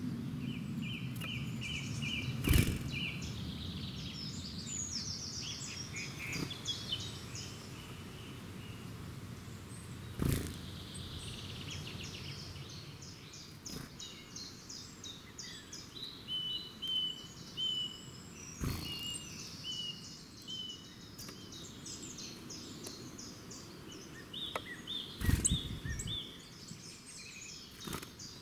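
Several songbirds singing at once, overlapping songs of quick repeated short notes. A low rumble fades over the first several seconds, and a few sharp thumps stand out, the loudest about two and a half seconds in and near the end.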